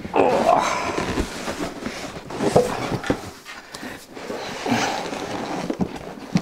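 Large cardboard box holding a heavy machine being heaved over and set back upright on a wooden bench: cardboard scraping and rubbing, flaps rustling, and several dull thumps as the box's weight comes down.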